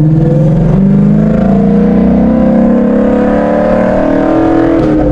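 Car engine breathing through Kooks 1-7/8" long-tube headers with the resonator and muffler deleted, the mid pipe not yet joined at the X-pipe, accelerating hard so the exhaust note climbs steadily in pitch for about four seconds before dropping back near the end. The sound is loud and race-car-like.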